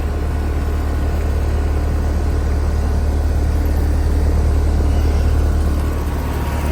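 2021 Carrier Comfort 3-ton central air conditioner's outdoor condensing unit running: a steady low hum from the compressor and condenser fan.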